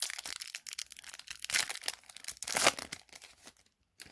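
Foil trading-card pack wrapper crinkling and tearing in a quick, irregular run of crackles that stops about three and a half seconds in.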